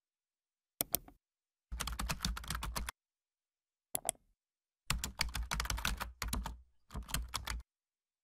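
Computer keyboard typing in several short runs of rapid keystrokes, a few single clicks between them, with dead silence in the pauses.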